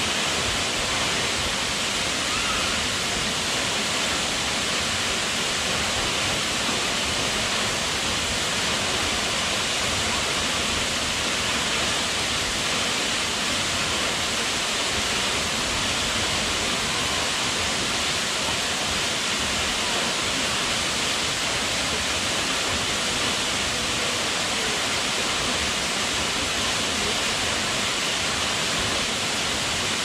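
A tall waterfall plunging into a pool, making a steady, even rush of falling water that does not change.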